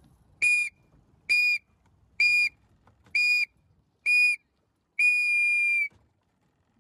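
A whistle blown as a start-sequence countdown: five short, loud blasts about a second apart, then one long blast about five seconds in marking the start.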